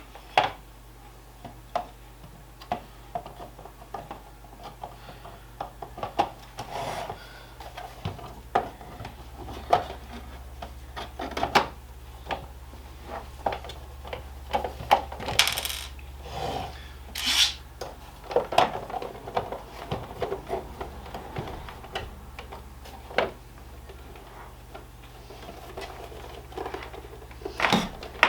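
Plastic casing and parts of a gaming steering wheel being handled and fitted back together: scattered clicks, taps and light knocks, with a few longer rubbing scrapes about halfway through.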